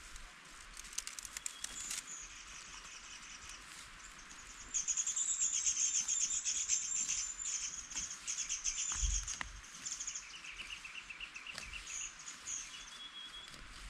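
A rapid, high-pitched pulsed trill from a small wild animal, loudest for about four seconds starting some five seconds in, then breaking into shorter trills. A soft low thump about nine seconds in.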